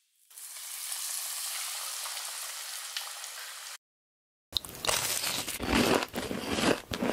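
Panko-breaded shrimp frying in hot oil with a steady sizzle. It cuts off, and after a short silence come several loud, crisp crunches of the fried panko crust.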